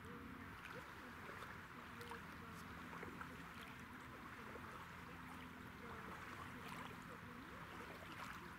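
Faint light rain: a steady soft hiss with scattered small drop ticks, over a faint low steady hum.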